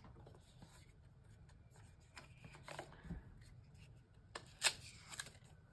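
Soft handling of a boxed card deck: the cardboard box's lid being opened and the cards slid out, faint rustling with a few short sharp clicks and taps, the loudest a little after four and a half seconds in.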